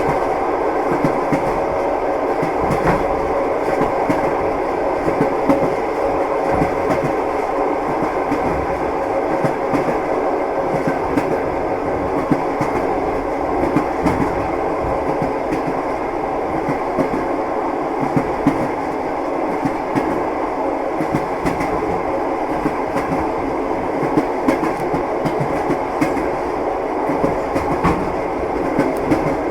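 Train wheels clattering over the rails: a steady rolling rumble with irregular clacks throughout.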